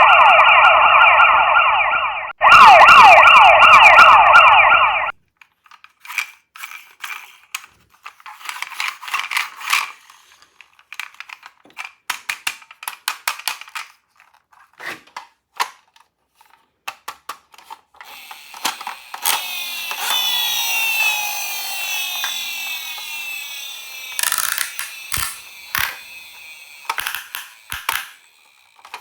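Toy ambulance's electronic siren, loud and wavering for the first five seconds, with a short break a little over two seconds in. Then scattered plastic clicks and rattles of the toy being handled, and a hissing, whirring sound lasting several seconds past the middle.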